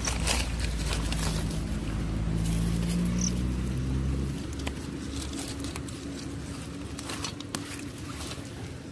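Rustling of leaves and stems and scattered clicks of handling as someone pushes through damp undergrowth, over a low motor drone that fades about four and a half seconds in.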